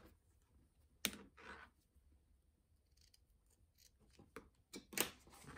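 Small scissors snipping through ribbon to trim its tails: a sharp snip about a second in and another near the end, with a few fainter clicks of the blades between.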